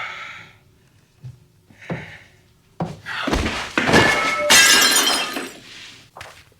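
A sudden crash of shattering glass and clattering objects, starting about three seconds in and lasting a couple of seconds, with glassy ringing inside it, as a man collapses from a coughing fit.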